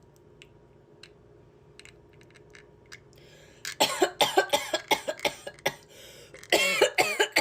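A few faint clicks of a pet-food can being opened quietly, then from about four seconds in a cat's rapid, loud string of meows, the cat alerted to the can being opened.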